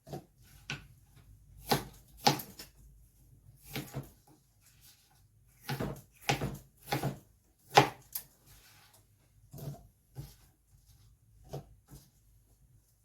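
Kitchen knife dicing pear and striking the cutting board in irregular knocks, about one or two a second, some in quick pairs.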